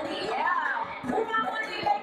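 A woman rapping into a microphone over a hip-hop beat, amplified through the venue's sound system.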